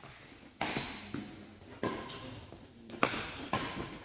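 Badminton rackets striking a shuttlecock in a rally, three sharp hits about a second and a quarter apart, echoing in a large sports hall.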